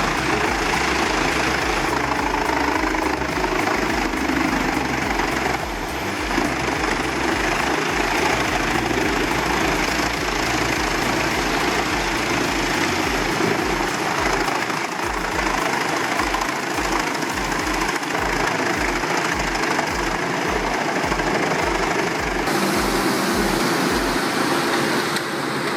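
Large diesel-powered log shredder running under load: a steady engine drone with dense grinding and crushing noise and uneven low pulsing, shifting in character near the end.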